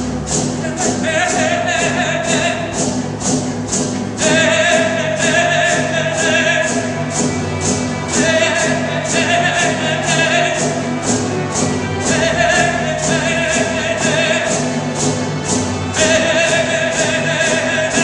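Live chamber orchestra music: a lead melody in about five long phrases, each a few seconds long, over sustained low string notes and a steady light percussion beat.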